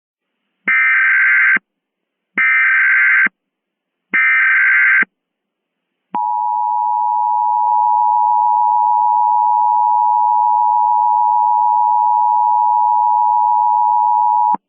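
Emergency Alert System header: three short bursts of SAME data tones, each under a second long and about a second apart. After a short pause comes the EAS attention signal, a steady dual tone held for about eight seconds that ends abruptly.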